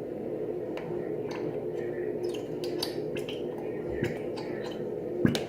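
Small squishy clicks and ticks of glue being squeezed from a plastic bottle into a bowl, over a steady low background hum, with a sharper knock near the end.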